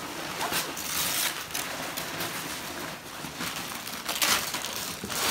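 Christmas wrapping paper being torn and crumpled off a large gift box, in a few noisy rips and rustles, the loudest a little past four seconds in.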